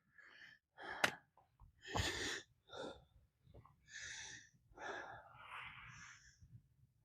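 A person breathing close to the microphone, short hissy breaths in and out about once a second, with a single sharp click about a second in.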